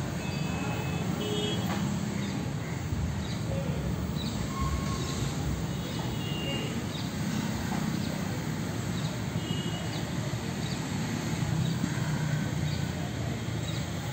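Steady low rumble of background traffic, with brief high-pitched tones scattered through it.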